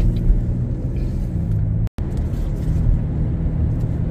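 Car engine and road noise heard from inside the moving car, a steady low rumble that cuts out for an instant about halfway through.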